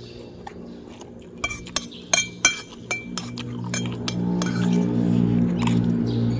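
Cutlery clinking against a plate, several sharp ringing strikes in quick succession between about one and a half and three seconds in. A steady low hum of several pitches swells up beneath it in the second half.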